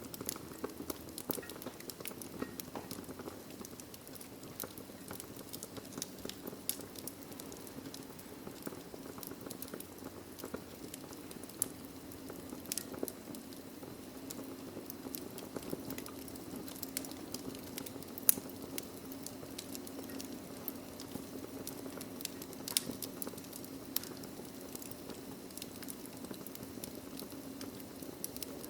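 Wood logs burning in a fireplace, crackling with frequent sharp, irregular pops over a steady low rush of flame. One pop about two-thirds of the way through is clearly the loudest.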